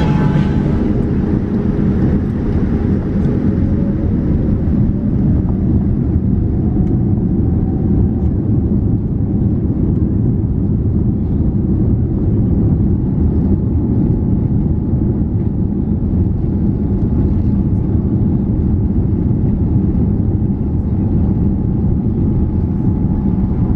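Boeing 787-9 cabin noise from a window seat as the airliner rolls on the ground: a steady, dense low rumble of engines and airframe, with a faint rising tone a few seconds in.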